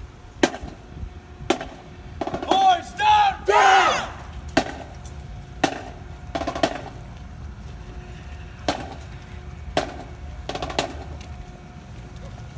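Marching band drum click keeping the marching tempo: sharp stick clicks about once a second, with a voice calling out about two to four seconds in.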